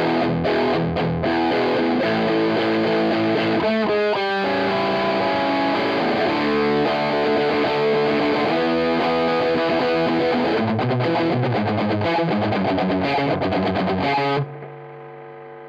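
Electric guitar played through an MXR DD25 Dookie Drive overdrive pedal with its blend turned fully to the drive side: distorted chords and riffs with a quick run of notes about four seconds in. Near the end the playing stops and a quieter chord rings on.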